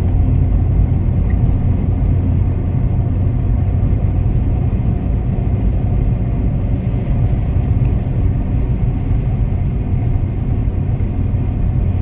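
Steady road and engine rumble of a car driving along a highway, a deep even drone with no change in pace.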